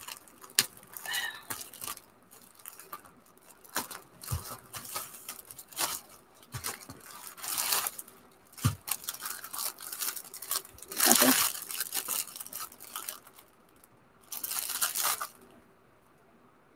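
Clear plastic packaging crinkling and rustling in irregular bursts as a sealed bag is peeled open and a plastic-wrapped towel is pulled out of it, with several louder crinkles through the middle and near the end.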